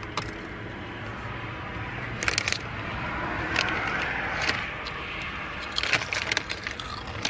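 Crinkly potato chip bag rustling as a hand rummages in it, with scattered sharp crackles and crunches of chips being taken out and eaten.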